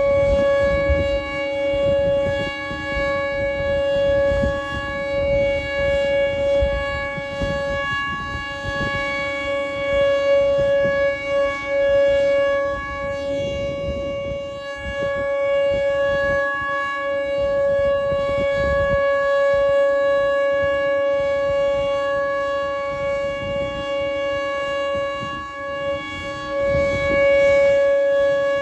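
Outdoor tornado warning siren sounding one steady, unchanging tone for a noon test. Its loudness swells and fades every few seconds.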